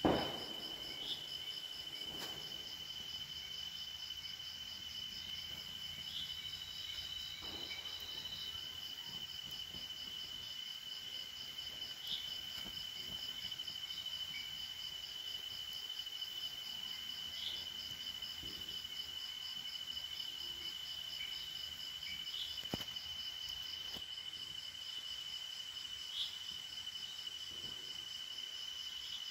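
Steady chorus of night insects: a continuous high trill with a faster pulsing trill above it. A sharp crack comes right at the start, and a few faint crackles from the burning coconut fibre are scattered through.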